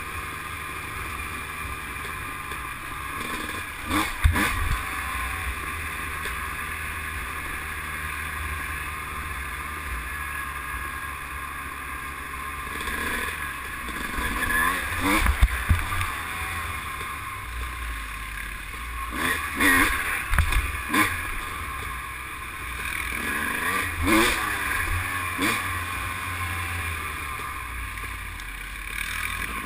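ATV (quad) engine running at trail speed, its pitch rising and falling with the throttle, with several sharp knocks as the machine jolts over bumps in the dirt trail.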